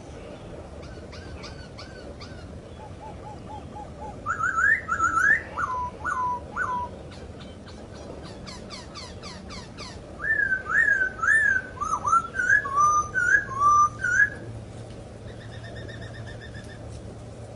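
Poksay Hongkong laughingthrush singing loud whistled phrases: a burst of rising whistles followed by short falling notes, then after a pause a longer run of looping up-and-down whistles. Fainter chirps of other birds sound in between.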